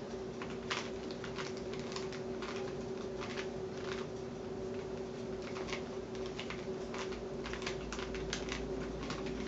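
Rubik's cube being turned quickly by hand, its layers clicking in a rapid, irregular patter over a steady low hum.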